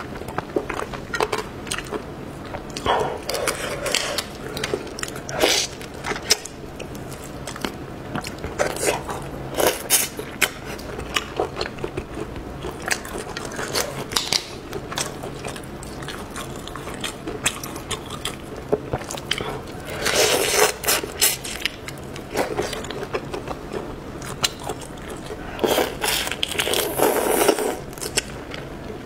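Close-miked eating of marinated prawns: prawn shells cracking and crackling as they are peeled by hand, with wet chewing and sucking on the prawn meat. Several longer stretches of sucking and chewing come about 3 seconds in, about 20 seconds in and near the end.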